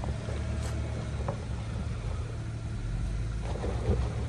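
Jeep engine running steadily with a low hum, with a few short knocks and rattles mixed in.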